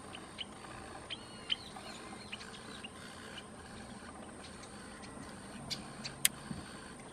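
Wild birds chirping: a scatter of short, high chirps, some sliding in pitch, over steady outdoor background noise in the first couple of seconds. About six seconds in come a few sharp clicks, the last one the loudest.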